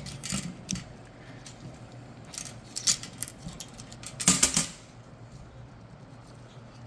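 Metal transmission pump parts clinking and clattering as they are handled and turned over on a workbench: a few light clicks near the start, a couple more around the middle, and a louder cluster of clanks a little after four seconds in.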